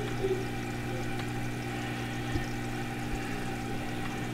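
Aquarium filter running: a steady hum with water trickling and splashing into the tank. A short tap comes a little over two seconds in.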